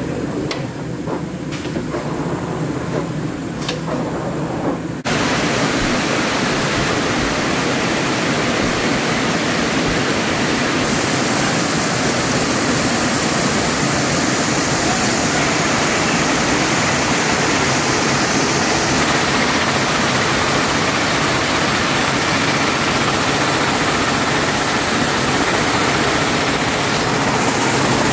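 Picanol air-jet weaving looms running at speed: a loud, dense, steady machine noise that comes in abruptly about five seconds in. Before that it is quieter, with a few sharp clicks.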